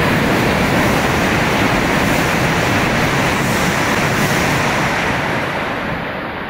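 Coupled Hayabusa and E6-series Komachi Shinkansen train passing through a station at speed without stopping: a loud, steady rush of noise that slowly fades as the train goes by.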